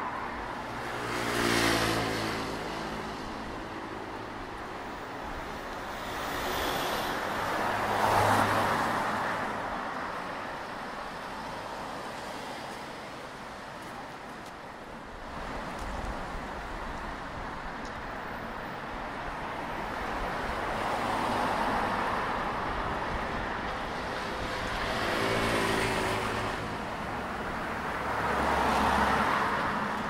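Cars passing on a multi-lane city road: tyre and engine noise swells and fades about five times over steady traffic noise, with a quieter lull partway through.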